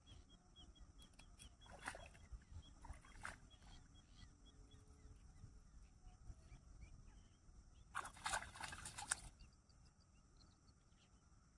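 Splashing and rustling in shallow, weedy water as a hooked snakehead fish is landed by hand: two short splashes early on and a louder burst of splashing about eight seconds in, lasting just over a second.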